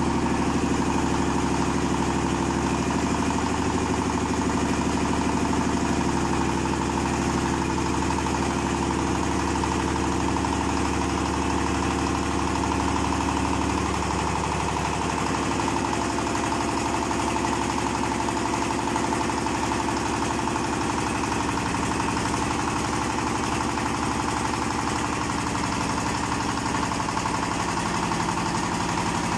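Small screw-type mustard oil expeller running steadily, a continuous machine hum with several steady tones. About halfway through the low part of the hum thins out and the sound turns rougher.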